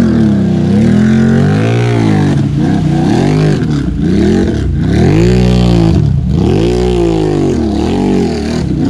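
Can-Am Renegade XMR 1000's V-twin engine through RJWC slip-on mufflers, revved hard in repeated swells, rising and falling about every second and a half, as the spinning tires churn through deep mud.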